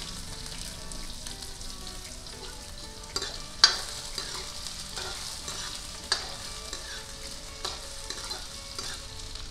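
Chopped onions sizzling in hot oil in a steel kadhai, stirred with a steel ladle that clinks and scrapes against the pan a few times, loudest about three and a half seconds in.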